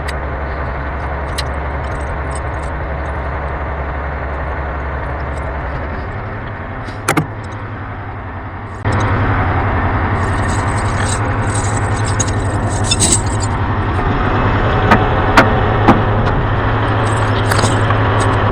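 Heavy diesel truck idling steadily, with tire-chain links clinking and jingling and a few sharp metallic clicks as the snow chain is worked on.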